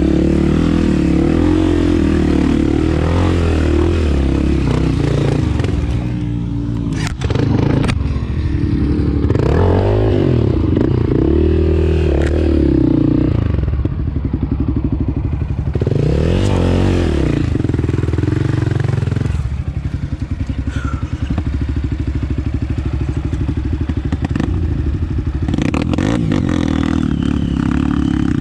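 Honda CRF250F trail bike's single-cylinder four-stroke engine running under way, the revs rising and falling again and again as the throttle is opened and shut. There are a few sharp knocks and clatter from the bike over rough ground about seven seconds in.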